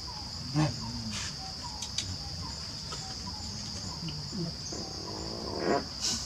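Steady high-pitched drone of insects, with a few short animal calls over it; the loudest call comes near the end.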